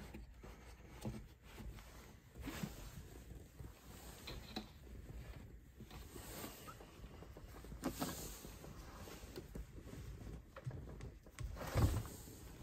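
Faint handling noise as the display mount's plastic knob is turned by hand to lock the unit's angle: scattered light rubs and small clicks, with a short soft knock near the end.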